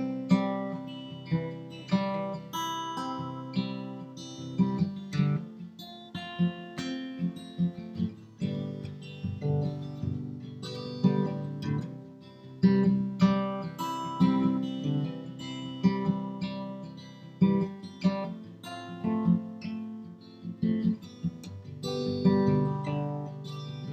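Acoustic guitar playing an instrumental break of a folk song, strummed chords with notes ringing between strokes.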